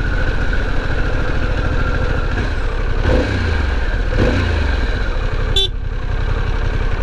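Harley-Davidson Pan America's V-twin engine running at low revs, with two short throttle rises about three and four seconds in. A brief sharp sound comes about five and a half seconds in.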